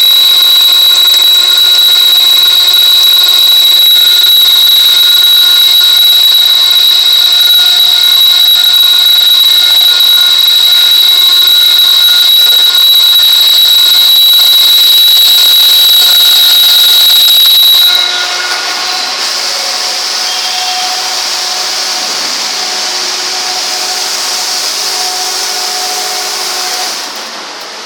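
Rotary coordinate drilling machine running: a loud, steady, high-pitched whine with fainter steady tones beneath it. About 18 seconds in, the whine stops and a quieter hiss carries on.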